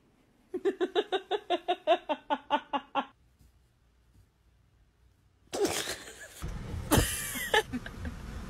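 A person laughing in a quick run of about a dozen short rhythmic bursts. After a pause come rustling noise and a sharp knock near the end.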